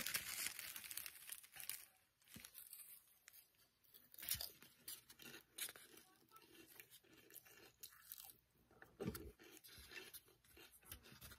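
Faint, irregular crunching of Grippo's barbecue potato chips being chewed with vanilla ice cream, densest in the first couple of seconds, with a spoon scraping in a foam cup.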